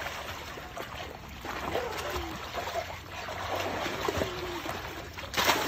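Pool water splashing and sloshing as children thrash about in it, with a louder splash near the end.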